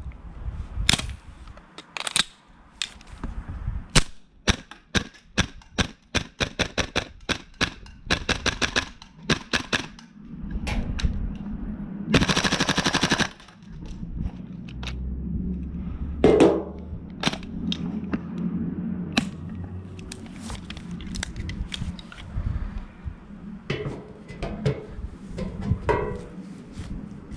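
Gas blowback airsoft rifle (Tokyo Marui MWS M4) firing, each shot a sharp crack with the bolt cycling. A quick string of single shots, about two or three a second, is followed just after the middle by a full-auto burst of about a second and a half, then scattered clicks and knocks.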